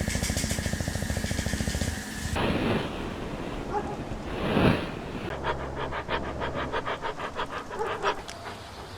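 A fast buzzing rumble for about two seconds and a loud rushing swell near the middle, then a puppy panting quickly, about five breaths a second.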